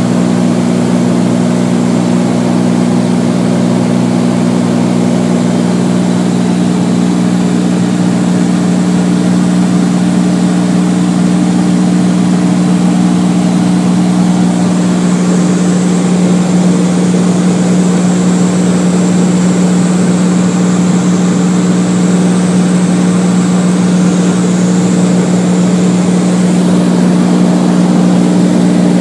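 Beechcraft Bonanza's single piston engine and propeller running steadily in cruise, heard inside the cockpit as an even drone.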